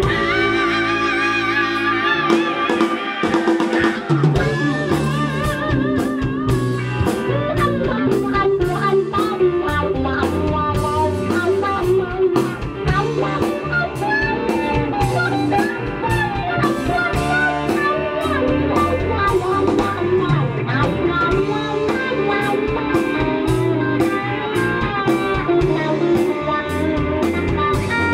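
Live rock band playing: electric guitars over electric bass and a drum kit, with a long wavering held note in the first few seconds.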